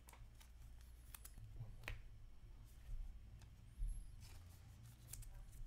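Trading cards being handled and sorted by hand: light flicks, slides and taps of card stock against card and table, with a few sharper clicks, over a low steady hum.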